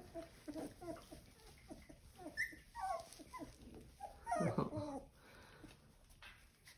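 Young F1b Goldendoodle puppies whimpering: a run of short, high whines and squeaks, with a longer, louder whine a little over four seconds in.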